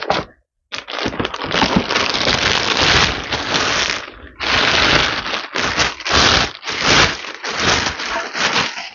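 Thin plastic wrapping crinkling and rustling loudly as it is pulled and stripped off an air rifle, with a brief pause near the middle.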